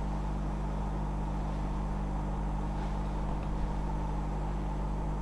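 Steady low hum of room tone, even and unbroken, with no other distinct sound.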